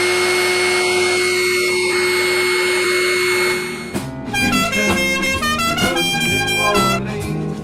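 A horn sounds one long steady blast of about four seconds. It is followed by a tune of short, stepping notes.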